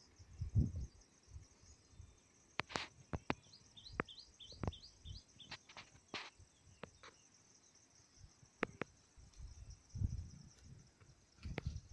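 Rural hillside ambience: insects keep up a steady high-pitched buzz, and a bird gives a quick run of short chirps a few seconds in. Low rumbles of wind on the microphone and a few sharp clicks come and go.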